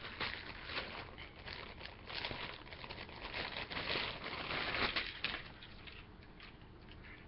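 Plastic packaging crinkling and rustling as it is handled, in a rapid run of crackles that dies down about two-thirds of the way through.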